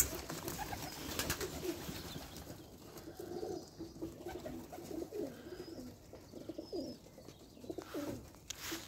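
Domestic pigeons cooing, a run of short, low burbling calls repeated throughout, with a few brief clatters in the first two seconds and one near the end.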